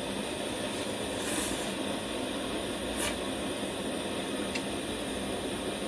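Hyundai 703 kerosene pressure burner running with a steady hiss under a pot of noodle soup. A brief click comes about three seconds in.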